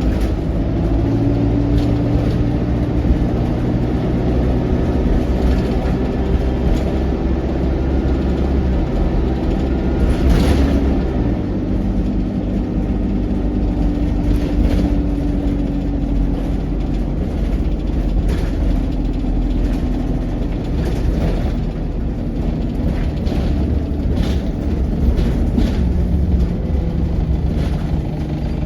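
ADL Enviro200 single-deck bus's diesel engine and Allison 2000 automatic gearbox under way: a steady engine drone whose pitch rises and falls several times as the bus speeds up, changes gear and slows. Short rattles and knocks come through now and then, the loudest about ten seconds in.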